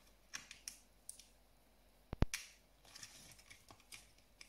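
Plastic packaging of a small Magic Mixies Mixlings toy cauldron being handled while it is opened: scattered light clicks and crinkles, with one sharp click about two seconds in, the loudest, followed by a brief rustle.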